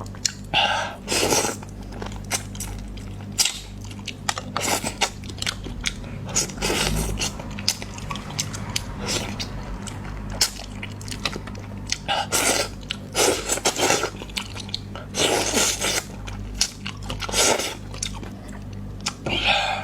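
A person eating close to the microphone: irregular chewing, biting and crunching mouth sounds, as in a mukbang.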